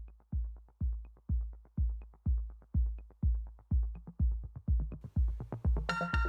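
Electronic intro music: a steady deep kick drum about twice a second, with synth notes and bright percussion coming in near the end.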